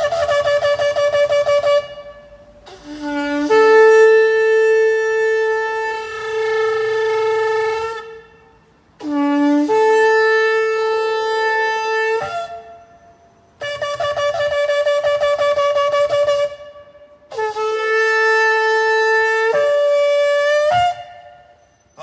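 A long spiralled shofar blown in five long blasts separated by short pauses. Most blasts open on a brief low note that jumps up to a higher held note, and the last one steps up in pitch near its end.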